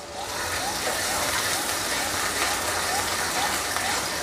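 Chopped onions sizzling steadily in hot oil in an aluminium karai (wok) as a spatula stirs them, at the start of frying them to light brown.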